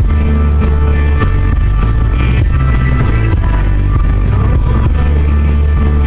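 Loud rock music with guitar and a heavy bass line, playing steadily.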